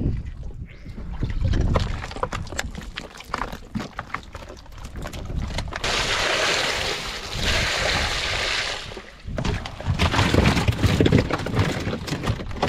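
Water poured over freshly caught trevally in a plastic basket, a steady splashing lasting about three seconds near the middle. Before and after it, a low rumble with scattered knocks and handling noises.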